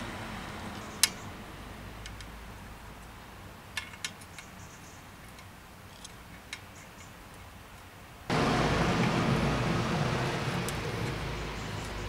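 Sharp metal clicks and ticks of an Allen key working a clamp bolt at a bicycle headset: one loud click about a second in, two more near four seconds, a few small ticks after. About eight seconds in, a louder steady rumbling noise starts abruptly and slowly fades.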